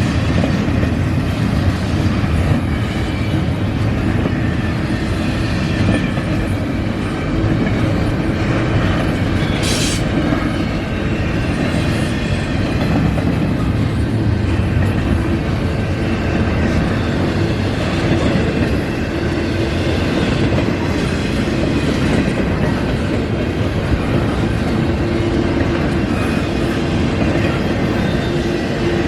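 Canadian National intermodal freight train rolling past at close range, a steady rumble of wheels on rail with clickety-clack over the rail joints. A sharp clack stands out about ten seconds in.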